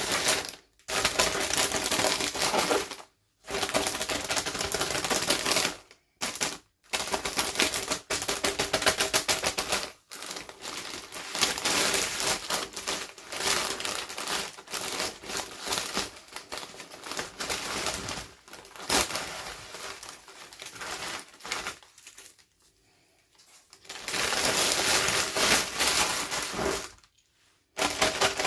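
Plastic packaging being handled and opened: dense crackling and rapid clicking that comes in stretches of a few seconds with short pauses between them.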